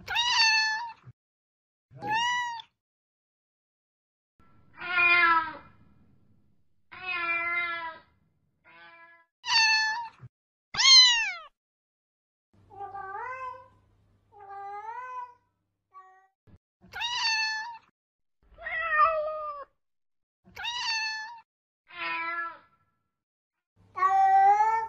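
Domestic cats meowing: about fifteen separate meows, each under a second long, with silence between them; several rise then fall in pitch.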